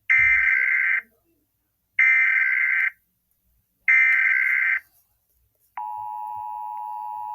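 Emergency Alert System SAME header: three loud one-second bursts of data tones, about two seconds apart. They are followed by the quieter, steady NOAA Weather Radio warning alarm tone, which begins about six seconds in. Together they signal the start of a new weather warning broadcast.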